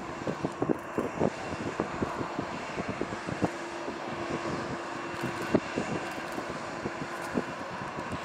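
Jet engines of a Boeing 737-800 freighter running with a steady roar, broken by many irregular sharp pops and carrying a faint steady tone.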